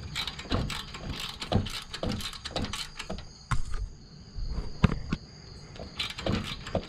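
Ratchet wrench clicking in short irregular runs, with scattered metal clinks, as the exhaust manifold bolts are worked loose.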